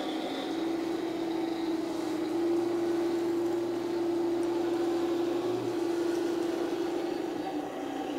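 Heng Long Tiger I RC tank running with its smoke unit switched on: a steady, even electric drone from the tank. A lower hum drops out a couple of seconds before the end.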